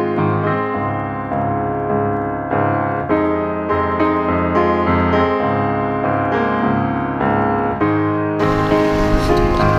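Piano music, a run of notes and chords changing about every half second. Near the end a loud rush of wind and surf comes in under it.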